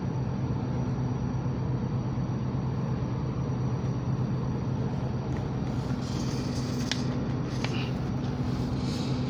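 Samsung inverter mini split outdoor unit running with a steady low hum. A few light clicks and rustles come in over the last few seconds.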